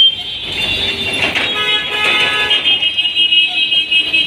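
Vehicle horns tooting repeatedly in busy road traffic over a steady traffic noise, with a loud toot right at the start.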